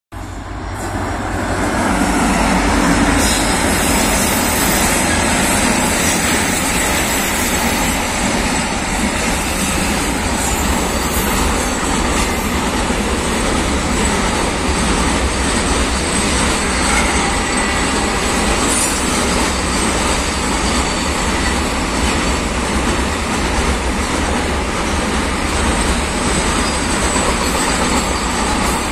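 Double-stack container freight train passing close by, its wagons' wheels rumbling and rattling steadily over the rails. The noise builds up over the first two seconds and then holds at a loud, even level.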